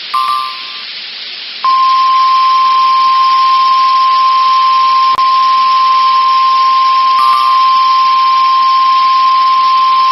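NOAA Weather Radio 1050 Hz warning alarm tone, the tone that announces a warning, sounding as one steady high tone for about nine seconds from about a second and a half in. A short double beep comes just before it, and another sounds over it about seven seconds in. There is a brief click near the middle.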